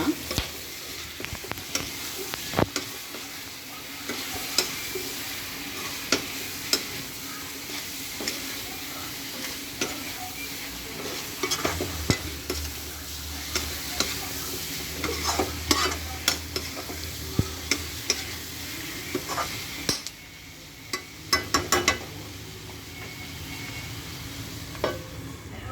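Chicken liver with onions and masala frying in oil in a kadai, sizzling steadily while a spoon stirs and scrapes through it, with scattered clicks of the spoon against the pan and a quick run of taps near the end.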